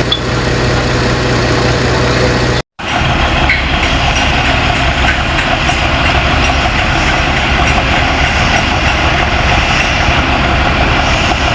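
Heavy diesel machinery engine running steadily, with a brief dropout about two and a half seconds in.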